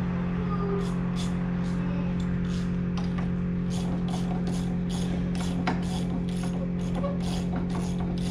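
Socket ratchet clicking in quick, even strokes, about three a second, as bolts are worked on the forage harvester's belt drive, over a steady low hum.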